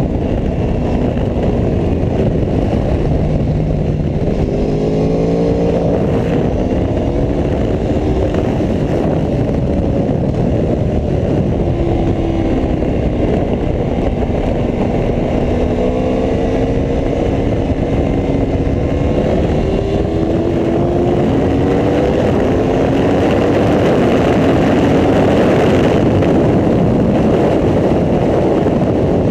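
Aprilia Tuono V4 1100 RR's V4 engine at track speed, its pitch repeatedly rising under acceleration and dropping at each shift or roll-off, under a steady dense rushing noise.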